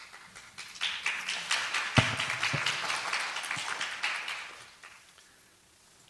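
Audience applauding, building up about a second in and dying away near the end.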